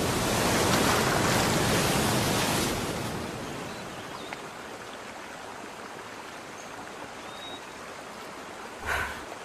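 Sea waves washing and breaking over rocks, loud for about the first three seconds, then dropping to a quieter steady hiss.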